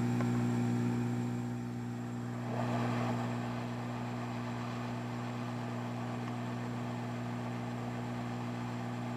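Hot air rework station's blower running with a steady motor hum. About two and a half seconds in, a rush of air grows louder as the nozzle is held over the board to reflow the solder under a new backlight booster chip.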